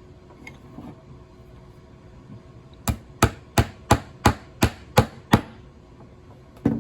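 Hammer driving a nail into wood through a pre-drilled pilot hole: eight quick, evenly spaced taps, about three a second. A short clatter follows right at the end.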